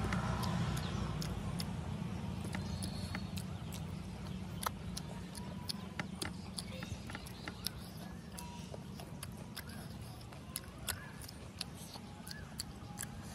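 Eating noises of a person chewing noodles: smacking lips and wet mouth clicks, many sharp irregular clicks, over a low rumble that slowly fades.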